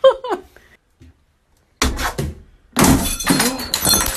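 A thud about two seconds in, followed by a longer clattering crash with ringing, glassy clinks.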